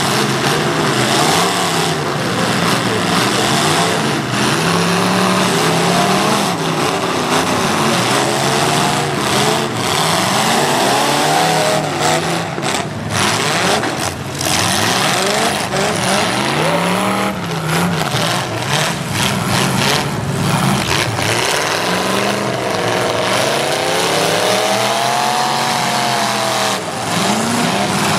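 Demolition derby cars' engines revving hard, their pitch repeatedly rising and falling as the cars push and ram one another, with sudden knocks and crunches of car bodies colliding.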